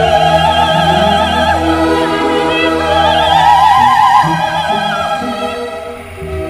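Background music: a voice in operatic style holding long notes with wide vibrato over a steady low bass.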